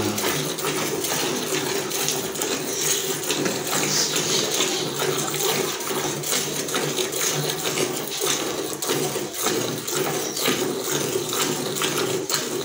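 A cow being milked by hand: milk squirting from the teats into a pail in a steady rhythm of short hissing streams, over a steady low hum.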